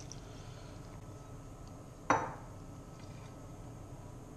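A single sharp clink of kitchenware about two seconds in, a bowl or glass pan lid knocking against the pan, over a low steady background.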